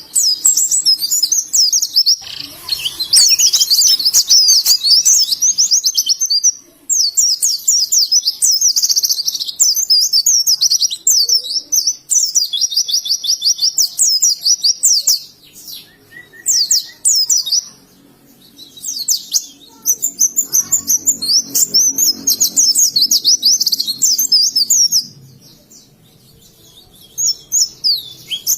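White-eye (pleci) singing a loud, fast, high-pitched twittering song in long runs of rapid notes, broken by a few short pauses.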